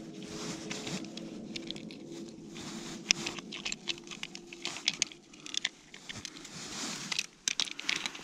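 Hands handling a black plastic Terminator-G pike tip-up while setting it up, giving irregular small clicks, taps and rustles, busiest in the second half. A faint steady hum runs underneath.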